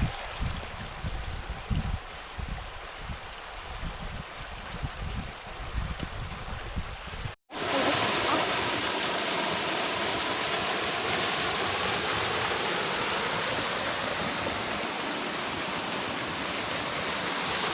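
Davidson's Linn waterfall rushing close by. For the first seven seconds or so there is irregular low buffeting on the microphone. After a brief cut the rush of falling water comes back louder and steady.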